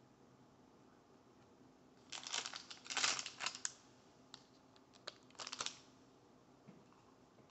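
Plastic Welch's fruit snacks pouch crinkling as it is handled, in two bursts of rustling about two and five seconds in, with a few light clicks between.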